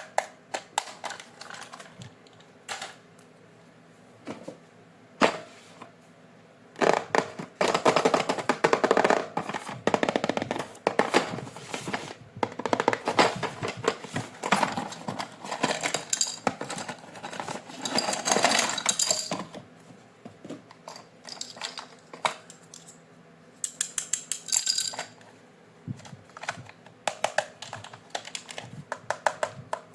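Plastic packaging and toy parts being handled and unpacked: rustling, crinkling and scattered clicks, busiest from about seven to nineteen seconds in.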